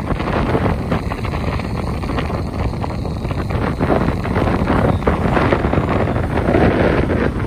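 Strong wind buffeting the microphone: a loud, rough rushing with irregular gusts, heavier in the second half.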